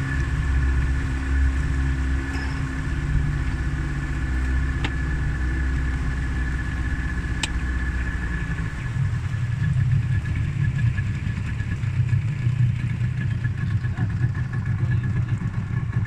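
Small boat's outboard motor running under way, then throttled back about halfway through to a lower, uneven idle.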